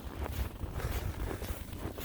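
Footsteps crunching in snow at a walking pace, about two steps a second, over a steady low rumble of wind buffeting the microphone.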